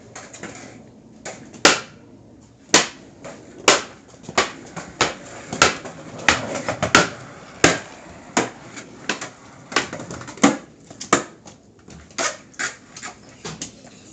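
A string of sharp, irregular clacks and knocks from a skateboard hitting and landing, about one to two a second.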